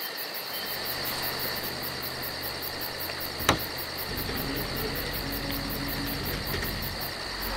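Night insects chirping in a steady chorus with a fast pulsing high trill. A single sharp click comes about three and a half seconds in, and soon after a low vehicle engine hum joins.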